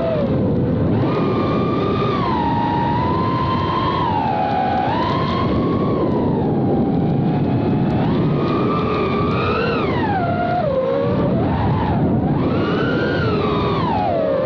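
FPV drone's electric motors and propellers whining continuously, the pitch rising and falling repeatedly as the throttle changes.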